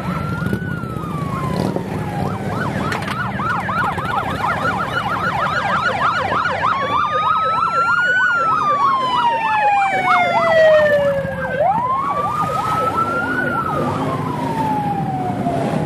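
Electronic sirens from several vehicles at once: slow wails that rise and fall over a few seconds, overlapped by fast yelping sweeps. Under them runs the steady low rumble of Harley-Davidson V-twin motorcycle engines rolling past.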